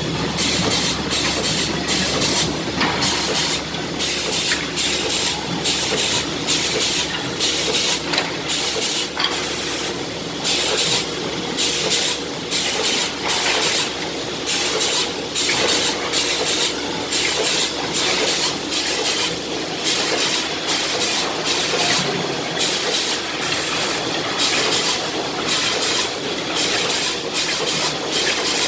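Kuang Yung defect-cutting saw running, a fast irregular string of sharp cutting and clattering strokes, a couple a second, over a steady hum and hiss.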